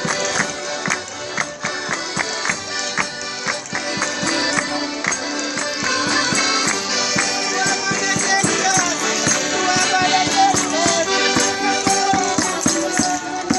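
Madeiran folk music played on the march: accordions holding steady chords over strummed braguinha and viola de arame, with a brinquinho's rattling and a bass drum keeping a quick, even beat.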